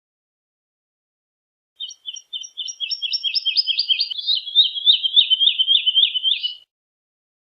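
Woodlark singing one phrase of about five seconds, starting about two seconds in. It is a run of quick repeated notes that starts soft, speeds up and grows louder, drifting slightly down in pitch.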